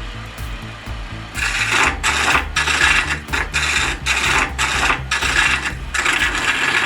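Wood lathe, with a turning tool cutting into the spinning wood. From about a second in, the tool gives a hissing scrape in short, repeated strokes with brief gaps between them.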